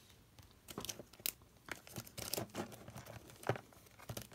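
Faint crinkling and rustling of paper or plastic with a few light taps, from pens and stationery being handled on a tabletop.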